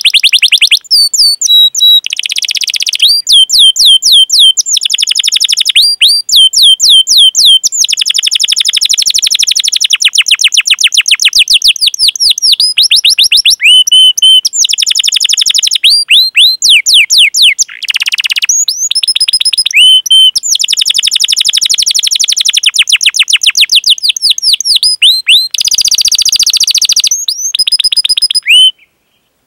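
Domestic canary singing long rolling trills: fast runs of rapidly repeated, down-slurred whistled notes that switch to a new run every second or two. There is a short break near the end.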